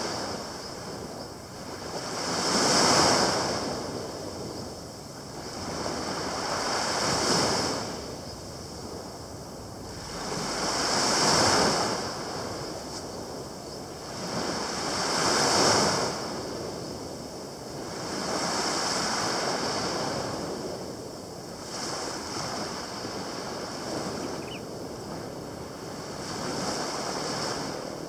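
Small waves breaking and washing up a shore of coarse sand, surging and fading away about every four seconds.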